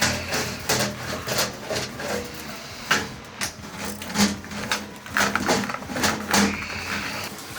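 Steel ball inside a tuba's brass tubing, dragged along by a rare earth magnet on the outside, knocking and clicking irregularly against the metal as it works a dent out.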